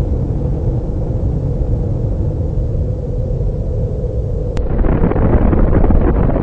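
Deep explosion rumble of a hydrogen-bomb blast, loud and sustained. About four and a half seconds in it cuts abruptly to a louder, fuller rumble.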